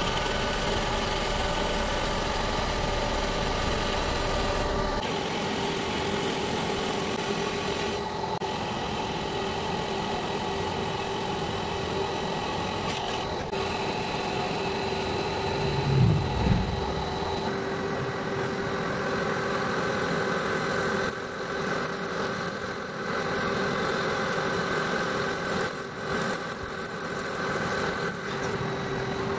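Metal lathe running steadily, its motor and gearing giving a constant hum, as a carbide tool turns an aluminium workpiece and a twist drill bores into it. There is a brief low rumble about halfway through, and in the last third short high-pitched squeals come and go.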